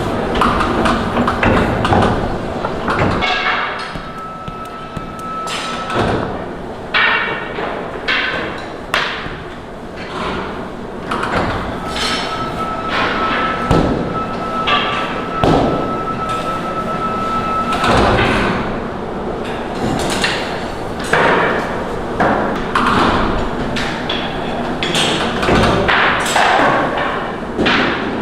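Irregular thuds and knocks of baklava being made by hand: trays, rolling pins and dough being handled and set down. A thin, steady high tone sounds twice, the second time for several seconds.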